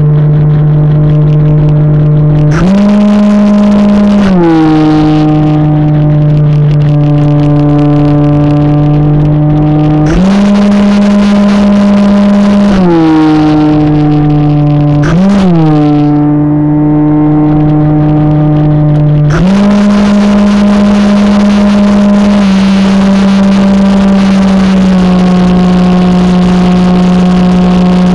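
Model airplane's motor and propeller droning steadily, heard through the onboard camera with wind rush. The pitch steps up as the throttle opens about two and a half seconds in, drops back about two seconds later, rises again around ten seconds and falls near thirteen. There is a quick blip around fifteen seconds, then the throttle opens again near nineteen seconds and holds, easing slightly toward the end.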